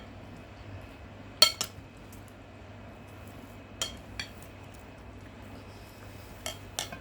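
Metal cutlery clinking against dishes during a meal: three pairs of short, ringing clinks about two seconds apart, the loudest about a second and a half in.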